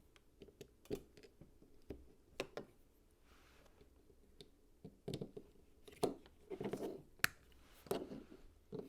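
Plastic LEGO pieces being handled and pressed together: scattered clicks and short rustling, with one sharp click about seven seconds in.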